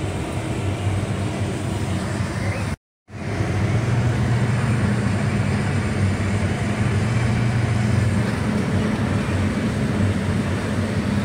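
A car driving, heard from inside the cabin: a steady low hum of engine and tyres under road noise. The sound drops out to dead silence for a moment about three seconds in, then resumes slightly louder.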